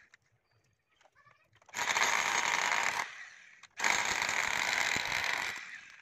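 Chinese-made electric rotary hammer drill hammer-drilling into a masonry wall, in two runs of about one and a half and two seconds with a brief pause between.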